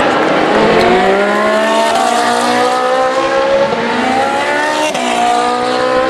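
Ferrari 458 Challenge race cars' V8 engines at full throttle, their pitch climbing steadily, with two quick drops for upshifts, about four and five seconds in, before climbing again.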